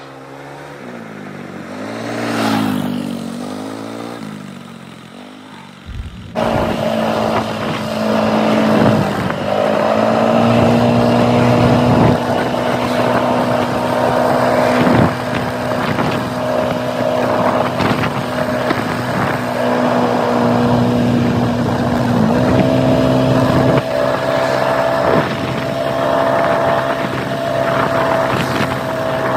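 Kymco MXU 300 quad's single-cylinder four-stroke engine. It first runs past, swelling to its loudest about two and a half seconds in and then fading. From about six seconds in it is heard on board at a steady cruising note, with brief dips in pitch around nine and twenty-two seconds.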